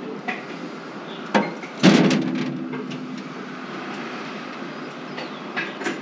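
Metal clicks and clanks from a John Deere L340 square baler's knotter and needle drive as the mechanism is turned over slowly by hand. One loud clank comes about two seconds in and rings on for a second or so, with lighter clicks near the end.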